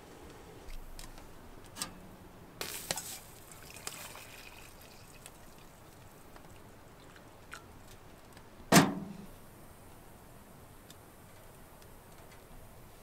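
Light handling clicks and a hot drink poured from a metal kettle into a metal camp cup, then one loud metallic clank with a short ring about nine seconds in, as of the kettle being set down on the steel wood-stove top.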